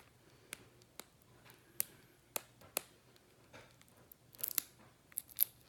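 Faint, scattered small clicks and taps from handling a dropper bottle and its dropper cap, with a quicker run of ticks and a short scrape about four and a half seconds in.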